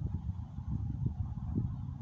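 Wind buffeting the microphone: a low, uneven rumble that swells and dips.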